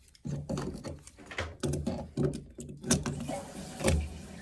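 Low murmuring voice, then about three seconds in a toilet fill valve starts hissing steadily as water flows into the newly installed tank after the supply valve is opened.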